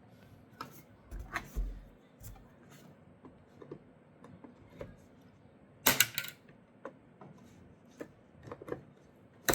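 Scattered plastic clicks and knocks as an old taillight lens is pried away from its glued housing, with a louder cluster of cracking snaps about six seconds in.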